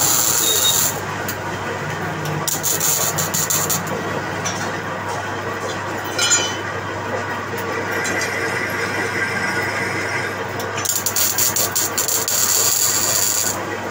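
Manual metal lathe running with a steady low hum, with spells of high-pitched squealing near the start, about three seconds in, and again near the end, and a sharp click about six seconds in.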